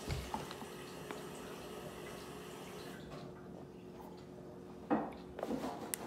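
Water running from a tap in the background, an even hiss over a faint steady hum, stopping about three seconds in. Near the end come a few short knocks and rustles as a plastic water bottle is handled and drunk from.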